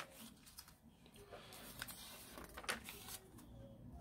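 Pages of a paper instruction booklet being turned, with several quick, crisp paper rustles and flicks, the loudest right at the start.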